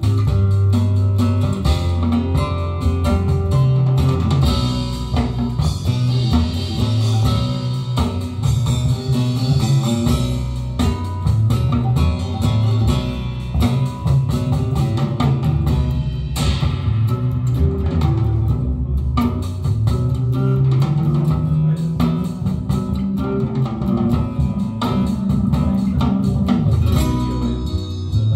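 Recorded music with guitar, bass guitar and drums, played back through a hi-fi system's floor-standing loudspeakers.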